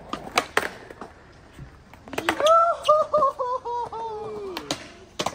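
A skateboard clacks on concrete a couple of times near the start. Then comes a loud run of about eight short high notes stepping down in pitch, a sad-trombone 'wah-wah' that marks a failed trick. Another sharp board clack comes near the end.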